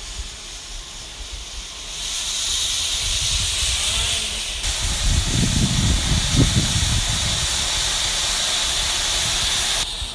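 Steam hissing loudly from the cylinder drain cocks of a 116-year-old tank steam locomotive as it moves slowly off. The hiss starts about two seconds in and cuts off suddenly near the end, with a low rumble in the middle.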